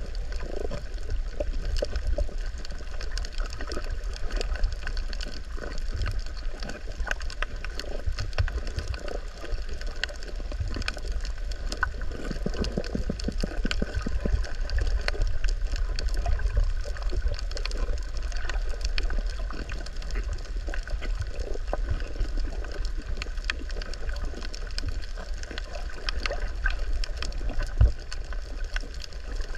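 Underwater ambience over a coral reef: a steady low rumble of moving water with gurgling, speckled with many faint scattered clicks and crackles. One louder click stands out shortly before the end.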